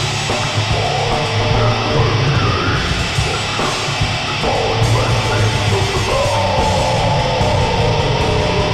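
Death metal recording: heavily distorted electric guitars over a dense, loud low end, with a single high note held through the last couple of seconds.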